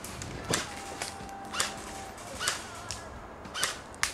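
Airsoft guns firing single shots: five sharp pops at uneven spacing, roughly one a second.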